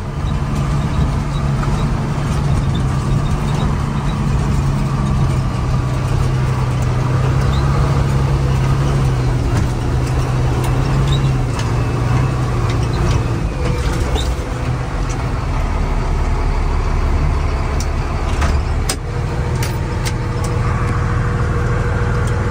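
Engine and road noise inside the cab of a vintage Ford pickup under way, a steady low drone whose pitch drops about halfway through as the truck slows. A few light clicks come near the end.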